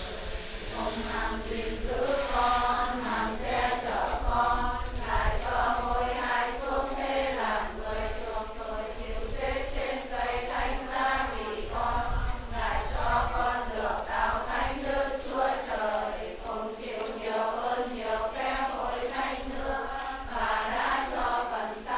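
A congregation chanting in unison, many voices holding sung notes that change every half second or so, in a continuous hymn-like line.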